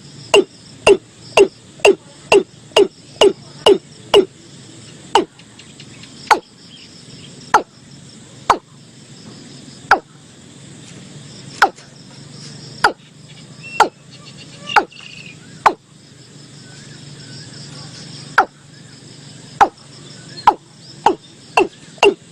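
Watercock calling: a series of short, deep notes, each dropping in pitch. They come about two a second at first, slow to roughly one a second or less in the middle, and quicken again near the end. Behind them runs a steady high insect hum.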